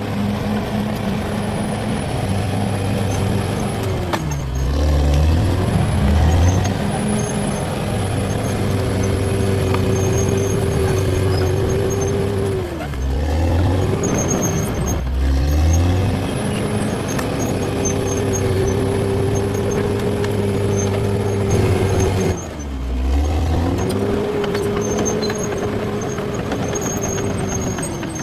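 Caterpillar D6R XL bulldozer's diesel engine working under load, with a steady whine. About four times the engine pitch drops sharply and climbs back, as it bogs under a push or shifts direction.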